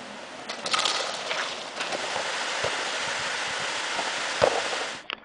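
Steady hiss-like rushing noise with a few short knocks, the sharpest about four and a half seconds in. It cuts off abruptly just before the end.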